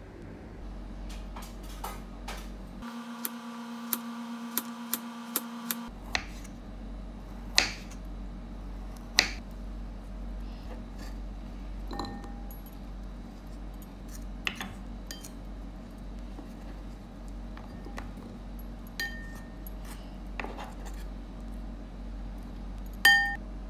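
Kitchen knife tapping and cutting through slices on a wooden cutting board in irregular clicks and knocks. A few sharper clinks ring briefly, as from a ceramic bowl being touched.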